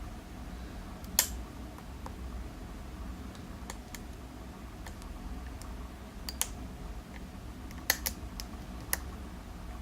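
Small sharp metal clicks from a lock pick working the pins of a 7-pin Zeiss Ikon Euro cylinder lock, scattered and irregular, the loudest about a second in and a few near the end, as the pick lifts and sets pins under tension.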